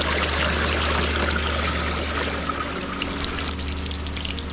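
Rainwater pouring and splashing as runoff gushes through a drain channel into a concrete ditch. About three seconds in, the sound changes to a splashier spatter of water falling from a PVC downpipe onto the ground.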